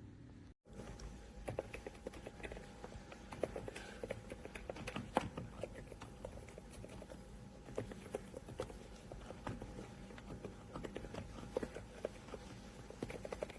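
Fast, continuous typing on a mechanical keyboard: a dense, irregular run of soft key clicks. The sound cuts out completely for a moment about half a second in.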